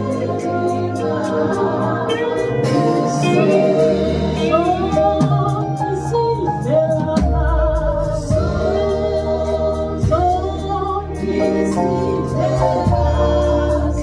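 Church band with singers performing a gospel song, voices over a steady beat; the bass grows heavier about four seconds in and again about seven seconds in.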